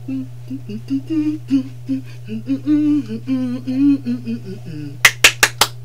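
A woman humming a bouncy tune over a steady low hum, then about four quick, sharp claps near the end.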